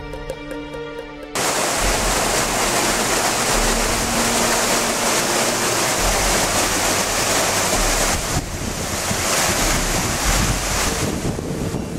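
Background music for about the first second, then a sudden cut to the loud, steady rush of a small mountain stream cascading over rocks, with wind buffeting the microphone.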